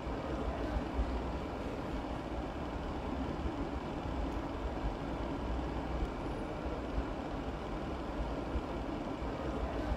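A steady low rumbling background noise, with a chef's knife chopping cabbage on a plastic cutting board in small irregular taps.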